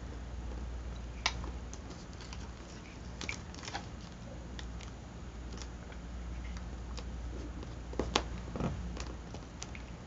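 Paper cutouts rustling and crinkling under hands as they are pressed down onto a glued collage page, with scattered light ticks and taps, the loudest about eight seconds in, over a low steady hum.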